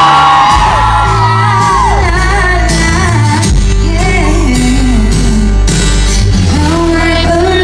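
Live pop band with a female lead singer holding long sung notes, loud through the venue's PA, with shouts from the audience.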